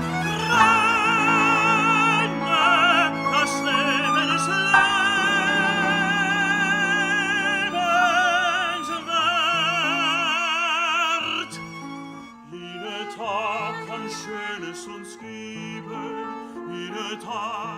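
Operatic singing with wide vibrato over classical instrumental accompaniment; the singing is louder and more sustained in the first part, then quieter with shorter phrases from about two-thirds of the way through.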